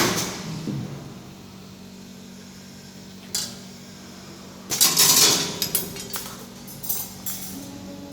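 Hard objects knocking and clattering: a sharp knock at the start, another about three seconds in, and a longer rattle about five seconds in, then a few light clicks, over a steady low hum.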